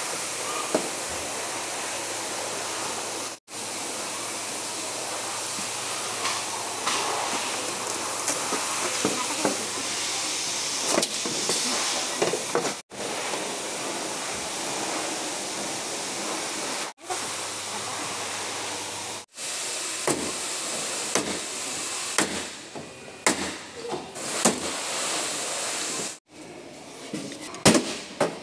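Steady hiss with scattered short knocks, cut off abruptly several times. Near the end come sharp sledgehammer blows on a vehicle's cab floor panel.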